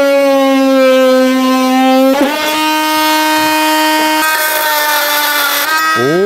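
Cordless oscillating multi-tool buzzing at a steady high pitch as it plunge-cuts plywood, its pitch sagging slightly under load. About two seconds in the pitch dips briefly and recovers.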